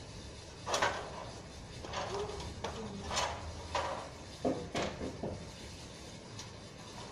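A person climbing a ladder propped against a wall: a series of short scrapes and knocks, the loudest about a second in.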